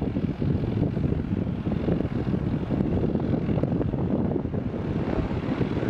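Small single-engine Cessna taxiing at low power: a steady, low engine-and-propeller drone, roughened by wind on the microphone.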